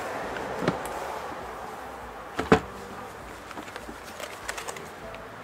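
CASO FastVac 500 vacuum sealer's lid being unlatched and opened, with a sharp click about two and a half seconds in, then the freshly sealed plastic vacuum bag crinkling as it is lifted off the sealing bar. A faint steady hiss runs underneath and fades.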